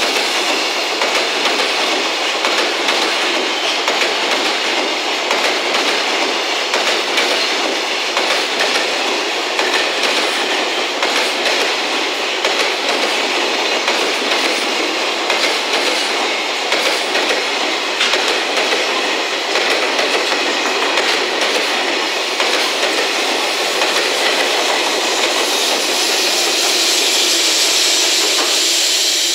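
A JR Freight container train's wagons roll past at speed, with wheels clattering steadily over the rail joints. Near the end, the EF210-300 banking electric locomotive at the rear goes by close, and the hiss grows brighter.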